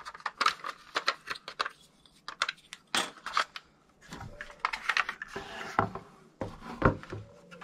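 Handling noise from a plastic LED lamp and round plastic light fitting being moved about on a wooden table: a quick scatter of small clicks and taps, the sharpest about three seconds in.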